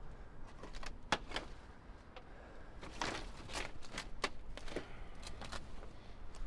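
Irregular crunches and knocks in scrap and debris, about a dozen short sharp sounds spread unevenly through the stretch.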